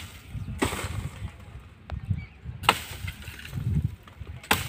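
A long wooden pole with a hooked blade striking tree branches three times, about two seconds apart, each hit followed by a brief rustle of leaves being knocked loose.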